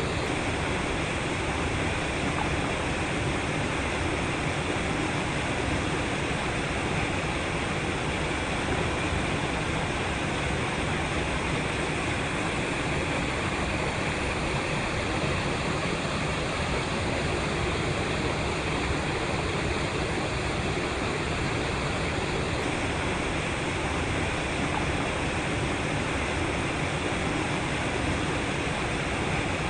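Water rushing and splashing against rocks in a steady, unbroken rush with no rise and fall.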